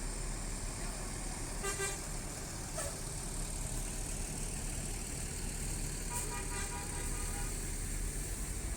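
Bus telolet horns sounding in short toots: a brief one about two seconds in, a shorter one just after, and a longer multi-tone blast from about six to seven seconds, over a steady low engine rumble.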